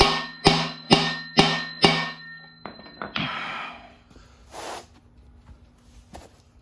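A small sledgehammer striking the handle of a bearing race driver, five ringing metallic blows at about two a second, driving a frozen pinion bearing race into its bore in a Ford 8.8 axle housing. The blows stop about two seconds in and the ringing dies away.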